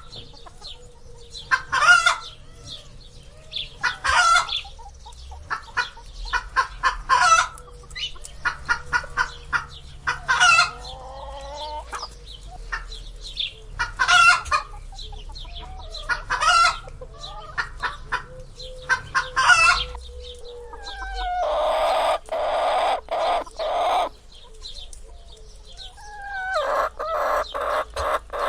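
Domestic chickens clucking in short bursts every couple of seconds. A longer, louder call comes a little past twenty seconds in, and a quick run of clucks follows near the end.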